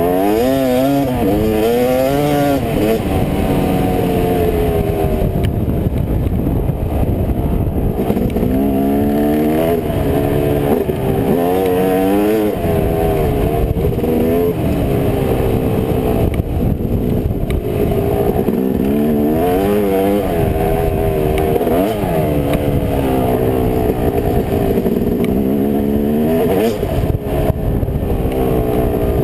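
Yamaha YZ250 two-stroke dirt bike engine under way, revving up and easing off again and again as the throttle opens and closes, heard from a helmet camera.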